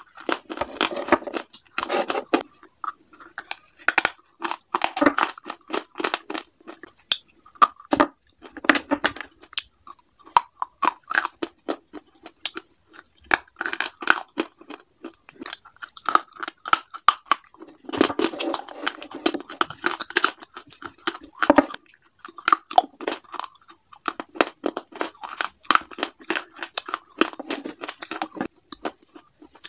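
Close-miked biting and chewing of slate pencil and slate pieces: sharp single cracks as pieces snap between the teeth, and dense runs of gritty crunching every few seconds as mouthfuls are chewed.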